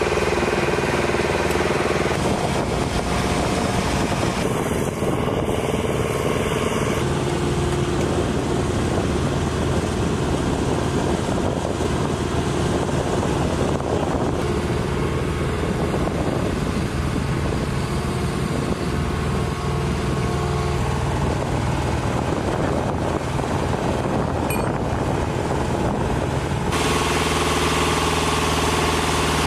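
Engine of a weapons-loading lift truck running steadily at idle, its sound changing abruptly about 2, 7 and 27 seconds in.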